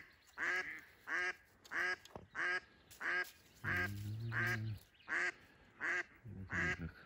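Live decoy hen duck calling to drakes: a long, evenly paced series of about ten quacks, a little under two a second.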